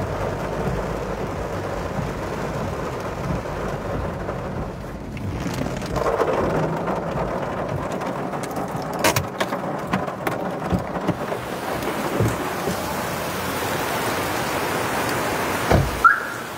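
Heavy rain falling steadily, with a few sharp clicks about halfway through and a thump near the end.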